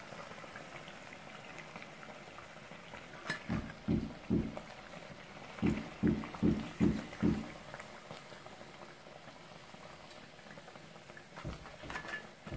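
Sandwich pakoras deep-frying in a pan of hot oil, a steady bubbling sizzle. A sharp click comes about three seconds in, then soft low thumps: a few together, a quick run of about six a little past halfway, and two more near the end.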